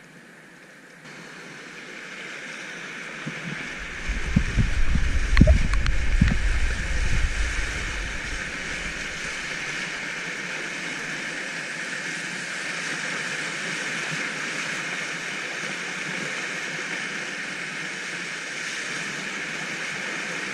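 River rapids rushing around a whitewater kayak, growing louder as it enters the riffle. About four seconds in, a few seconds of heavy splashing and low thumps as the kayak's bow punches through the waves, then a steady rush of fast water.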